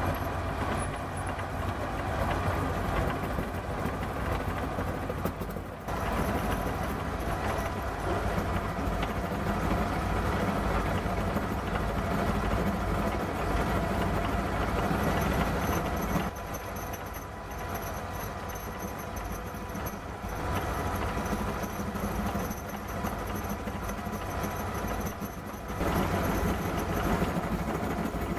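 Small milling machine running and its cutter milling a square drive into a chuck jaw screw: a steady motor hum under rough cutting noise. The noise grows louder about six seconds in, eases off for a few seconds past the middle and picks up again near the end as the cut is fed.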